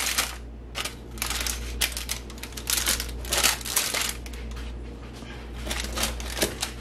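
A large kitchen knife pressed down through a baked slab of oat-free keto granola on parchment paper: irregular crackly crunches and clicks with paper crinkling, the slab crumbling under the blade instead of cutting cleanly.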